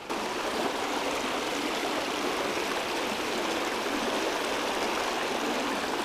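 Small rocky mountain creek running over stones and riffles: a steady, even rush of water.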